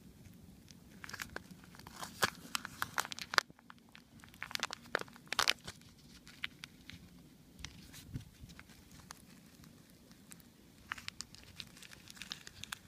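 Thin disposable plastic cup crinkling and crackling as hands flex and pry it open, in bursts of sharp clicks that are busiest in the first half and again near the end.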